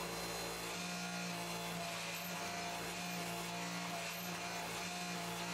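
Hydraulic forging press's electric motor and pump running with a steady hum while a hot steel billet sits between the dies for squaring.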